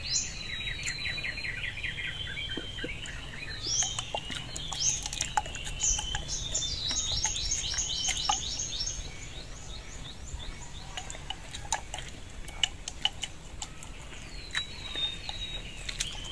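Birds chirping and trilling in quick repeated notes, busiest in the first half, with scattered small clicks.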